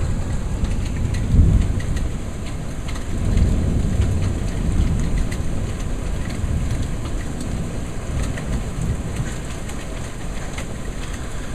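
Steady rain pouring down, with scattered ticks of small pea-sized hail striking and a low rumble of thunder that swells about a second and a half in and again a few seconds later.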